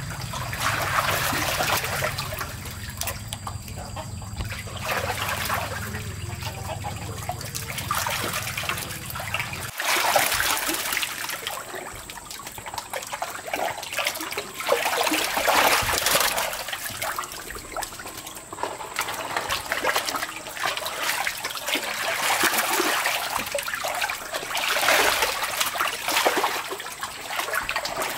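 Water splashing and sloshing in repeated surges as catfish thrash in a shallow concrete tank and a plastic basket scoops them out of the water.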